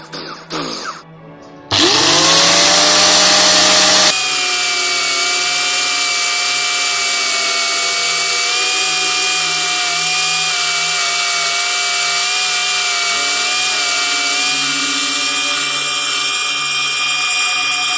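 Scraping clicks of a drill bit twisted by hand in soft wood, then an electric disc sander starting up about two seconds in, its pitch rising, and running on with a steady whine as wooden knife-handle scales are ground against the sanding disc.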